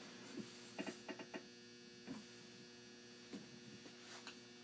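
Faint scattered clicks and taps of hand tools being handled, with a quick run of four about a second in, over a steady electrical hum.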